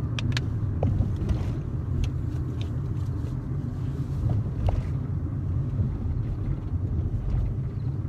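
A car driving along a road: a steady low rumble of engine and tyres, with a few faint clicks.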